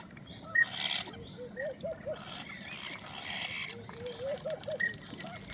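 Ducks dabbling and foraging in shallow water, their bills sifting with patches of wet, hissy splashing. Over it come short runs of three or four quick, soft calls, twice, and a couple of brief higher peeps, the first, about half a second in, the loudest sound.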